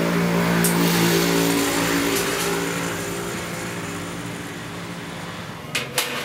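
A motor vehicle's engine running past, swelling about a second in and then slowly fading away. A few sharp clicks near the end.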